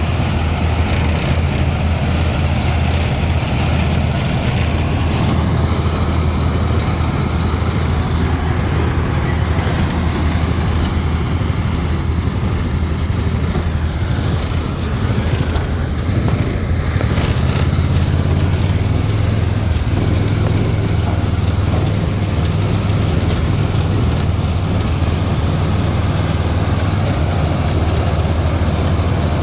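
Farm tractor engine running steadily with a corn picker working behind it: a low, even drone.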